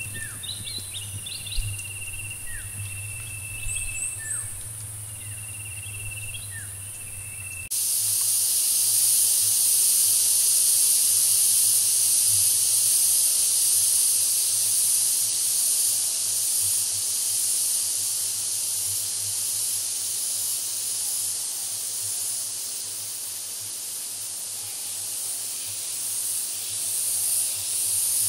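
Outdoor ambience: first a steady high insect note with a few short bird chirps, then, after a sudden cut about 8 s in, a louder, steady high-pitched insect chorus that lasts to the end.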